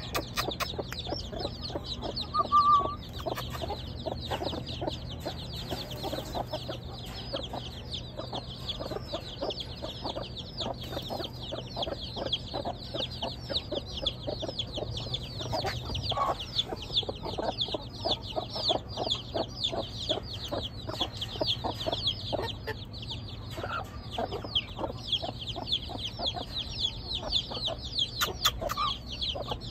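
Aseel chicks peeping nonstop in rapid, high, falling cheeps, with hens clucking low underneath. A short, louder call comes about two and a half seconds in.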